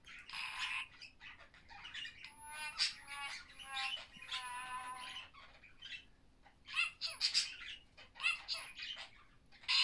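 A string of electronic robot sound effects from the Littlebits Space Rover's sound menu: short chirps, warbles and squawks, some gliding or stepping in pitch, with brief gaps between them.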